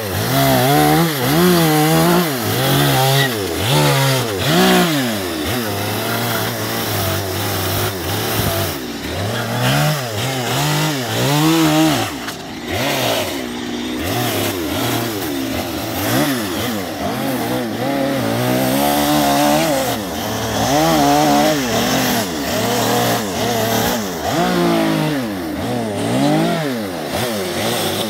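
Gas chainsaw cutting into western red cedar, its engine revving up and dropping back again and again as the chain bites into the wood. It eases off briefly about twelve seconds in.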